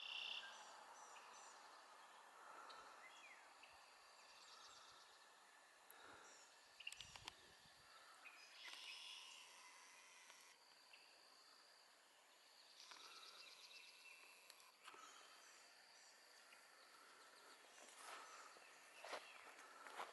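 Faint outdoor ambience with scattered bird chirps and trills from several birds. There is a brief low rumble about seven seconds in.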